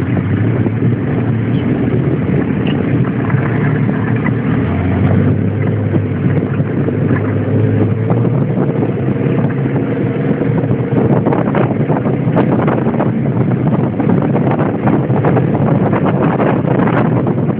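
Off-road buggy's engine running steadily under way, heard from on board. Frequent knocks and rattles join in from about the middle onward.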